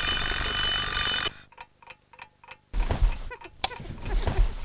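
An alarm clock ringing loudly and steadily, cut off abruptly about a second in. After a short silence come a few soft, irregular knocks and low thumps.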